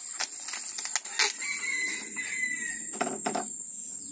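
Clear adhesive tape being pulled off the roll in short crackling pulls and wound around a plastic plant polybag.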